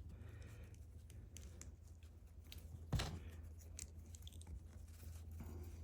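Faint clicks and handling noises of small plastic LEGO pieces being fitted and pressed together, with one sharper click about halfway through, over a low steady hum.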